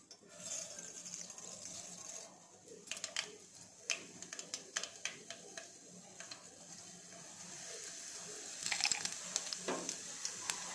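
Mustard seeds sizzling in hot oil in a saucepan: a steady hiss, with sharp pops and crackles as the seeds begin to splutter, and a denser run of crackling near the end.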